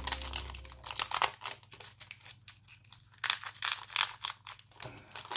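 Foil wrapper of a Yu-Gi-Oh! booster pack crinkling and tearing as it is opened by hand, in a quick run of irregular crackles, loudest about a second in and again between three and four seconds.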